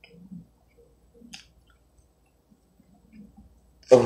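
A person chewing food with soft, quiet mouth noises and a click. Near the end comes a short, loud vocal sound from the eater.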